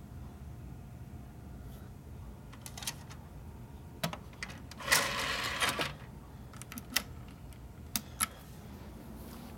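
A computer's CD-ROM drive tray, loaded with a disc, running shut with a noisy whir about a second long near the middle. Sharp clicks from handling the disc and the computer come before and after it.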